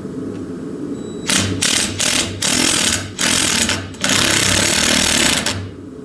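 Cordless impact driver hammering a 1/4-20 bolt through a 7/16 socket into a wooden board: a few short bursts, then one longer run, as the bolt head is sunk flush into the wood.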